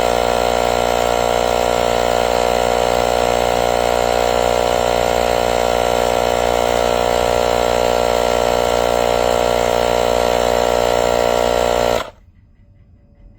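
Small portable tire air compressor built into a jump starter, running steadily, then cutting off suddenly near the end.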